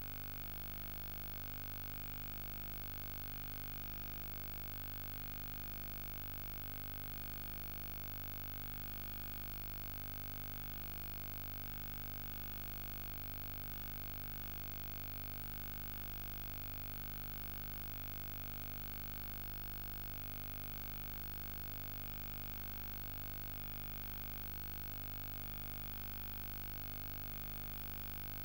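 Steady low electrical hum with hiss, unchanging throughout, in place of the programme sound: the Betamax transfer of this broadcast has no soundtrack.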